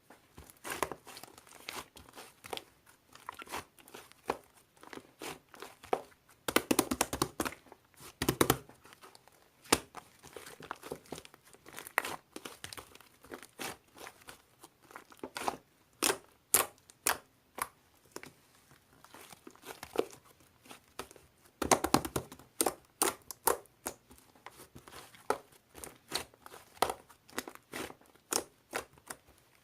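Slime being squeezed and pressed by hand, giving a continual run of sharp sticky clicks and pops. Twice it thickens into a denser stretch of crackling.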